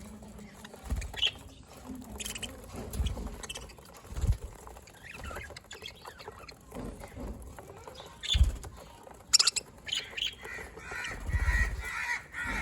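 A group of budgerigars chirping and chattering, short sharp calls scattered throughout and a run of busier warbling chatter near the end. Several dull low thumps come in between.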